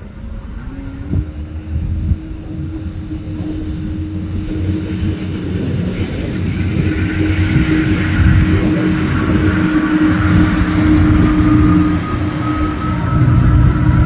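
A motor vehicle's engine running with a steady drone that grows louder over the first several seconds, a faint whine slowly rising in pitch in the second half.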